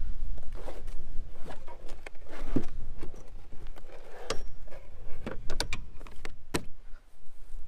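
Plastic and metal clicks and knocks as a grass-catcher bag's frame is fitted onto the rear of a cordless lawn mower and its rear flap is lifted, with rustling of the bag's fabric between them. A low rumble underneath eases off in the second half.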